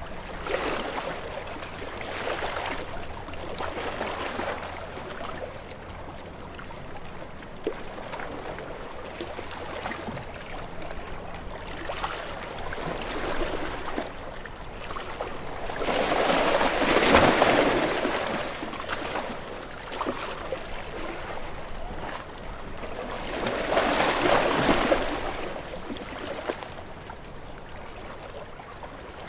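Small waves washing onto a shore, each a swell of splashing water that rises and falls over a few seconds. Two larger waves break in the second half.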